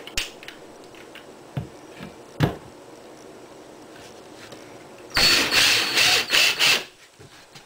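A few light knocks, then a Ryobi 18-volt cordless drill runs in about three short bursts lasting some two seconds in all, near the end, as it drives a 2.5-inch deck screw into a wooden board.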